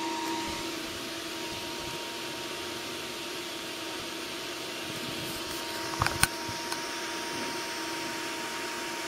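Desktop PC cooling fans running with a steady whir and a held hum tone. A few short clicks come about six seconds in.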